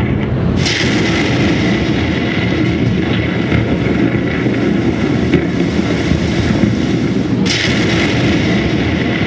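Loud rumbling thunder sound effects played over loudspeakers, with a sudden crackling crash about half a second in and another near the end.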